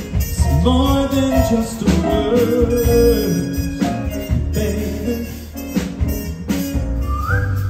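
A male singer singing into a microphone over a backing band with a drum beat, holding one long note in the middle.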